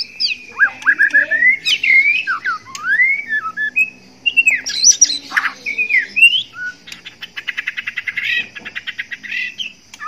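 Male white-rumped shama singing its courtship song: a string of varied whistled notes that glide up and down, breaking near the end into a fast run of short repeated notes at about nine a second. It is the song of a male in breeding condition.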